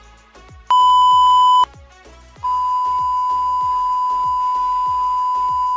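Electronic censor-style beep tone near 1 kHz: one loud beep lasting about a second, then after a short gap the same tone comes back about two and a half seconds in and holds steady. Faint background music with a steady beat plays underneath.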